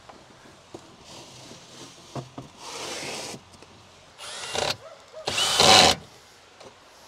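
A power drill on wood, run in three short bursts, the last the loudest.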